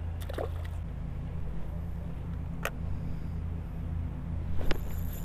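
Spinning rod and reel being handled: a few light clicks, and a sharper click about four and a half seconds in, over a steady low rumble.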